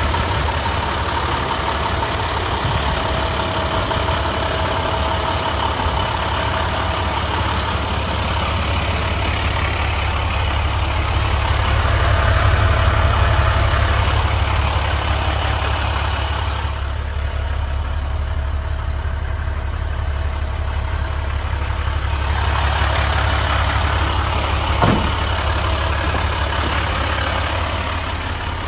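International 4300's MaxForce DT inline-six diesel idling steadily, with a low hum. A single short knock comes near the end.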